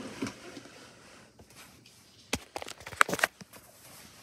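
Clear plastic storage drawer of a snake rack being handled and slid, giving a quick cluster of sharp plastic clicks and knocks a little over two seconds in.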